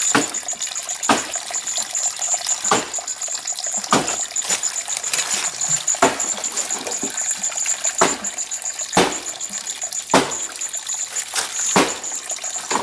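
Thin stream of water trickling steadily into cupped hands and onto leaf litter as something is rinsed under it, with a sharp splash about once a second. A high, rapidly pulsing note runs steadily behind it.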